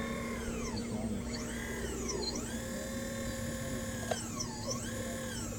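Electric whine of a radio-controlled model CAT 5110B hydraulic excavator's pump motor. Its pitch sags sharply and recovers about three times as the boom and bucket move under load.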